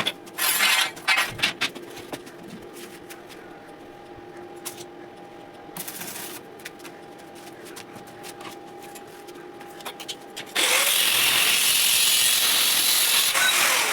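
A power tool, likely an angle grinder working metal, runs loud and steady for about three seconds near the end, then winds down with a falling pitch. Before that come scattered clicks and knocks of metal handling, with a few short noisy bursts at the start.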